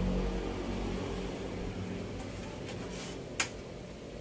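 A steady low electrical hum, with one sharp click a little after three seconds in.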